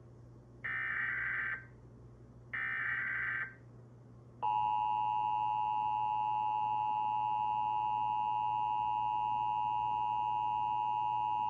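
The last two bursts of an Emergency Alert System SAME header, digital data tones each about a second long. About four seconds in, the EAS two-tone attention signal (853 and 960 Hz) starts and holds steady, the alert signal of the New Jersey required monthly test.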